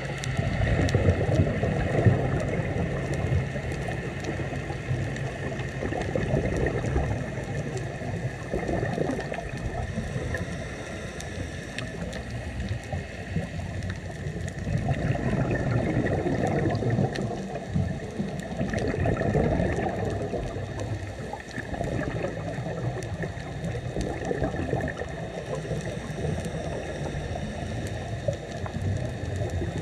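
Scuba diver breathing through a regulator underwater, the exhaled bubbles gurgling out in swells every few seconds.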